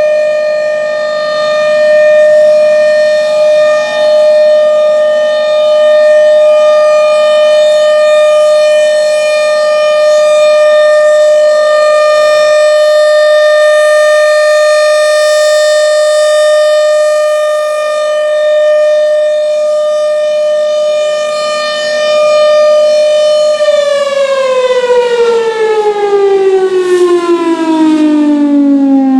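Federal Signal Thunderbolt 1000 blower-driven tornado siren sounding a loud, steady wail during a siren test. About three-quarters of the way through it begins winding down, its pitch falling steadily.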